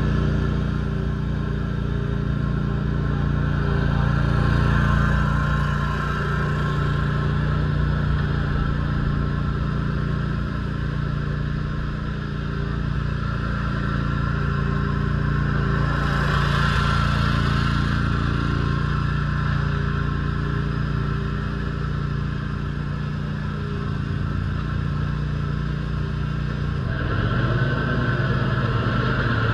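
Bob-Cat XRZ 52-inch zero-turn mower's Kawasaki FX691V V-twin engine running steadily as the mower is driven about, swelling and fading a little in loudness. Near the end the engine note shifts and grows louder.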